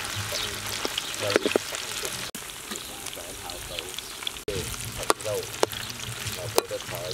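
Pork rib pieces deep-frying in hot oil in a wok: a steady sizzle with sharp crackles and pops scattered through it.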